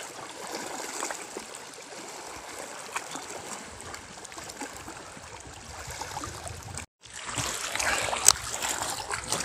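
Small waves lapping and splashing against a small boat's hull. After a brief cut-out about seven seconds in the splashing is louder, with a sharp click about a second later.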